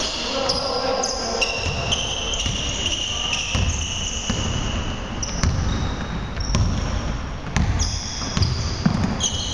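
A basketball dribbled on a hardwood gym floor, bouncing about once a second from a few seconds in, while sneakers squeak on the court in high, drawn-out squeals.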